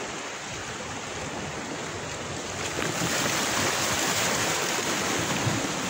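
Sea waves washing against the rocks of a shoreline, a steady rushing noise that grows a little louder about three seconds in.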